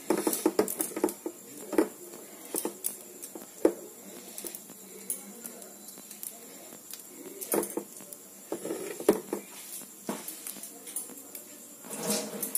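Palm-fruit fritter batter being mixed in a steel bowl: soft, irregular clicks and scrapes against the bowl.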